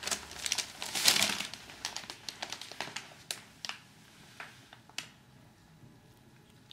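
Chihuahua puppy chewing and gnawing on a plush toy: crinkly rustling and sharp little clicks, densest in the first second and a half, then thinning to scattered clicks until about five seconds in.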